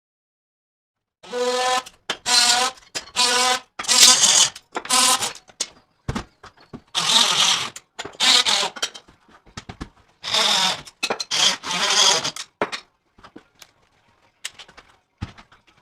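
A small power tool buzzing in repeated short bursts, starting and stopping about a dozen times, with a couple of sharp clicks between them.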